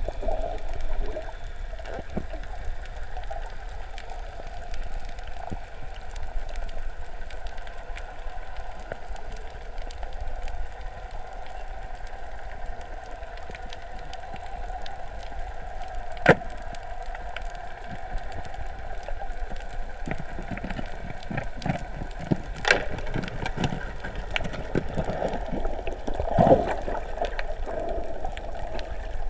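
Underwater ambience picked up by a camera in its housing: a steady muffled hum and low rumble with scattered faint clicks, a sharp single click about 16 seconds in, and a few louder knocks in the last third.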